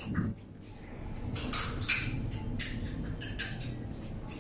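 Paper picture sheets rustling and crinkling as they are handled and swapped, in a series of short, irregular rustles.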